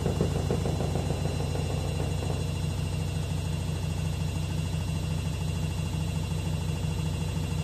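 LG washing machine on its spin cycle, running with a steady low hum and rapid rattling, making a lot of noise. A higher clatter stops about two seconds in, and the hum and rattle carry on.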